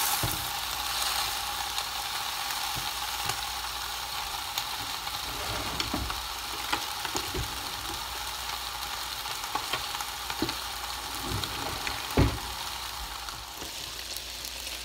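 Chicken barbecue skewers sizzling in a closed electric contact grill: a steady hiss with scattered pops and crackles, one louder pop about twelve seconds in.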